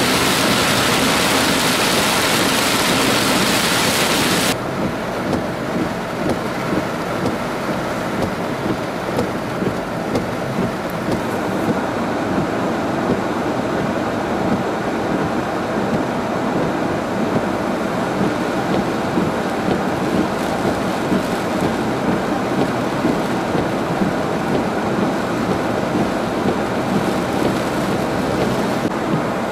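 Very heavy rain, heard from a car driving through it: a loud, even hiss that drops sharply about four and a half seconds in to a quieter, uneven rain hiss with traffic on wet roads.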